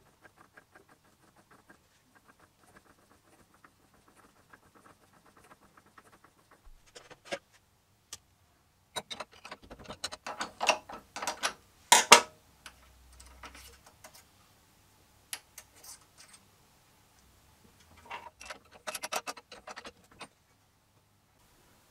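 Hand-tapping an M3 thread in a small lathe: faint, fine ticking as the work is turned by hand against the tap. Then metal clinks and clanks as a wrench works the collet chuck nut and the part is flipped, loudest about twelve seconds in, with another burst of metal clinking near the end.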